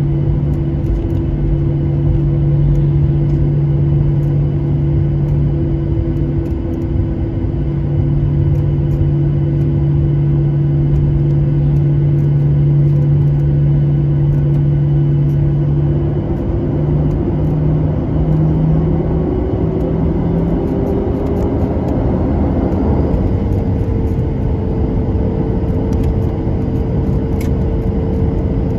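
Cabin noise inside a Boeing 737-800 taxiing: the steady hum of its CFM56 engines at idle and the cabin air, with a tone rising in pitch a little over halfway through.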